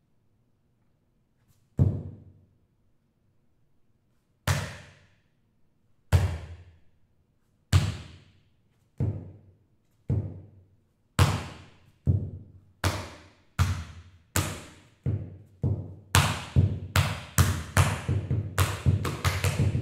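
Sharp hand slaps of body percussion, struck one at a time with a short ring-out in the room after each. They begin a couple of seconds apart and speed up steadily, until several come every second near the end.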